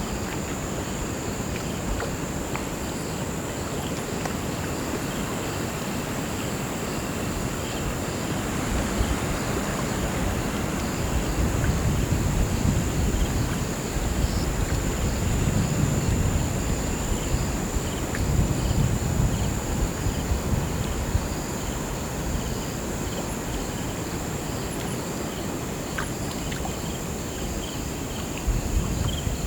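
Crickets chirping: a steady high trill with rhythmic, evenly repeating chirps, over the low rush of a flowing river that swells and eases.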